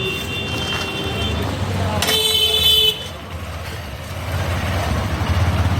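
Road traffic running steadily, with a vehicle horn sounding: a weaker honk fading out early, then a louder one about two seconds in that lasts nearly a second.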